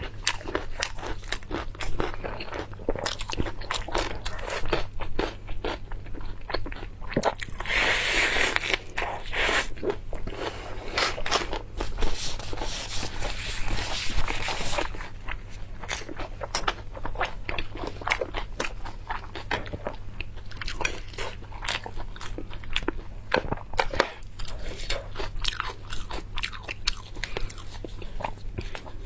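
Close-miked eating: biting and chewing a crisp lettuce leaf wrapped around braised pork belly, with many short crunches and clicks. Two longer, louder stretches of crunching come about a quarter of the way in and near the middle.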